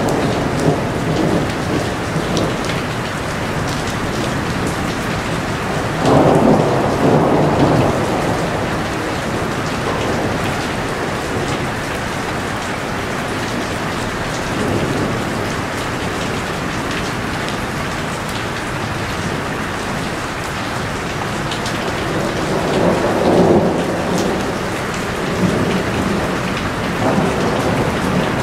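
Heavy rain falling steadily in a dense hiss. Several times it swells into a louder low rumble, most strongly about six seconds in and again past the middle.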